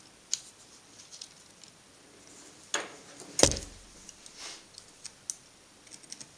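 Scattered small clicks and taps of hands and pliers fitting a new carbon brush into an angle grinder's brush holder; the loudest is a knock about three and a half seconds in.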